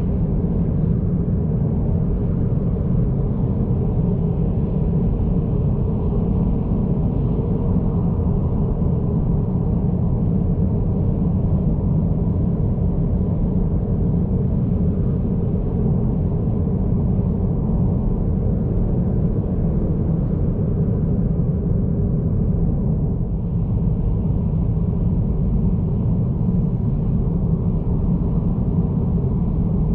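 Cabin noise of a 2022 Honda Accord Sport 1.5T cruising at highway speed: a steady low rumble of road and engine noise, heard from inside the car.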